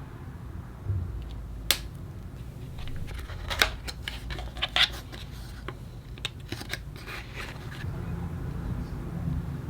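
Cosmetics packaging being handled and opened: a single sharp click, then a cluster of clicks, taps and short rustles, over a low steady rumble.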